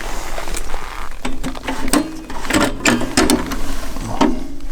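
Rapid clicks, knocks and rattles of metal parts being handled, with short tonal scrapes or squeaks between them.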